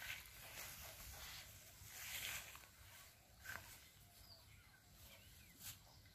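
Near silence: faint outdoor ambience with a few soft rustles and faint bird chirps.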